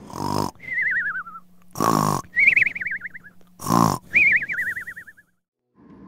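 Comic snoring sound effect: three loud snorts, each followed by a wavering whistle that falls in pitch. It cuts off about five seconds in.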